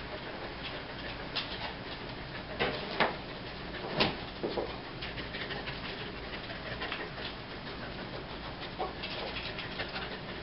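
A dog sniffing and breathing hard as it searches for a hidden scent, with several short sharp clicks and knocks, the loudest about four seconds in.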